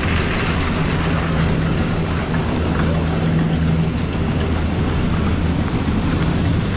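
Bottom-terminal machinery of a Leitner detachable high-speed quad chairlift running with a steady low hum as the chair rolls out through the station. A higher droning tone joins about a second in and holds for about three seconds.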